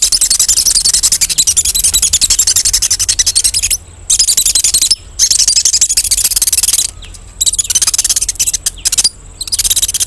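Wet plastic foam rubbed on glass, giving a rapid run of shrill squeaks that imitate small birds' distress calls, used as a bird-calling lure. The squeaking stops briefly about four, five, seven and nine seconds in.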